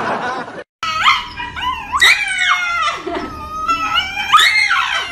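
A Shiba Inu howling and whining while a person holds its front paw. It gives a string of about five drawn-out, wavering calls that rise and fall in pitch.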